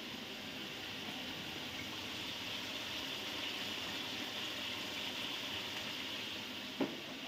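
Chicken karahi sizzling and bubbling in oil and tomato gravy in a steel wok over a gas flame, a steady frying hiss. A short knock near the end, likely the spatula against the pan.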